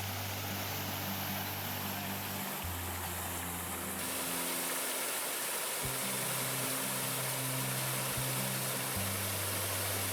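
Background music of sustained low bass notes that change every two or three seconds, with held chord tones above, over a steady hiss.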